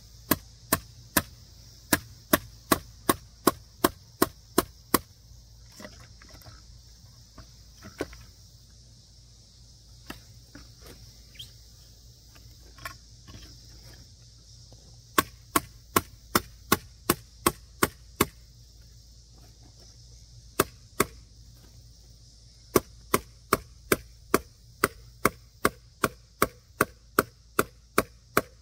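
Repeated sharp hammering blows on a wooden board as nails are driven in, about three strikes a second in runs broken by pauses with a few lighter knocks.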